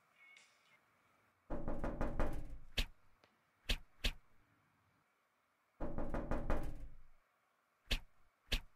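A smartphone buzzing on vibrate against a paper notebook, two rattling buzzes each about a second and a half long, with sharp taps as a cat's paw bats at the phone and notebook.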